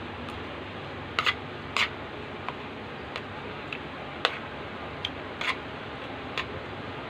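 Scattered light clicks and taps, about nine of them at uneven intervals, over a steady background hiss.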